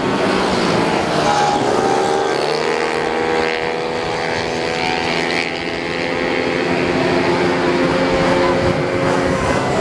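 Several race-tuned automatic scooters running hard past on a track, their overlapping engine notes rising and falling in pitch as they accelerate and go by.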